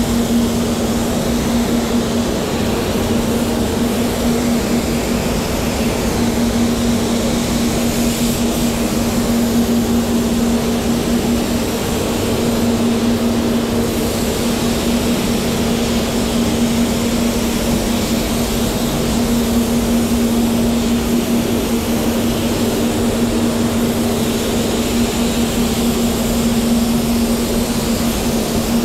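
Satajet spray gun hissing as compressed air atomises paint onto a car door, over a steady machine hum.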